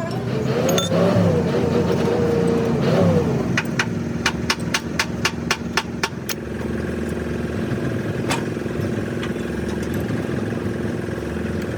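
An engine running steadily, its pitch rising and falling during the first few seconds. Partway through comes a quick run of about nine sharp knocks, roughly four a second.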